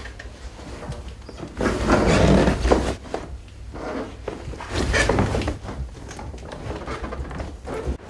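Footsteps and clothing rustle of a person going down a narrow stairway, with two louder stretches of rustling and knocks, about two and five seconds in.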